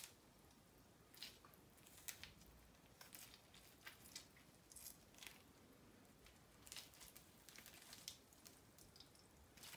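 Faint, irregular small clicks and scrapes of a kitchen knife cutting and peeling a lemon by hand.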